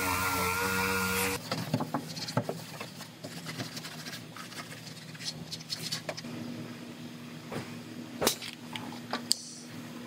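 Small pneumatic sander running with a steady whine against the steel rear body panel, cutting off abruptly about a second and a half in. Then scattered clicks and knocks of hands handling tools and wiping the panel.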